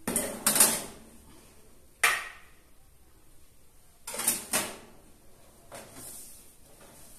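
Aluminium baking trays clanking and scraping onto an oven's metal wire rack in a series of sharp metallic clatters: a pair at the start, one about two seconds in, another pair about four seconds in, and a fainter knock near the end.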